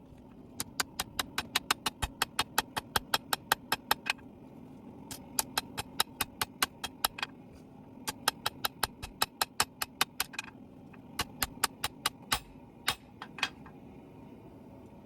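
Rapid hammer blows on steel, about five or six a second, in four runs with short pauses between them, over a steady low hum.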